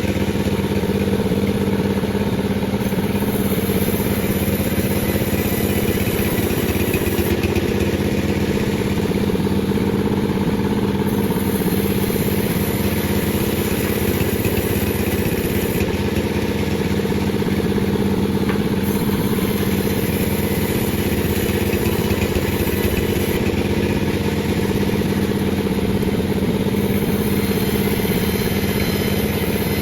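Chainsaw engine running steadily at an even pitch, held without revving up or down, as in a long cutting pass along a log.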